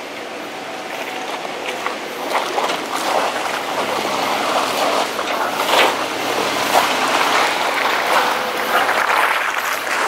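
Toyota 80-series Land Cruiser crawling down a wet, rocky trail, its tyres crunching over rock and splashing through mud and running water, getting louder as it comes close near the end.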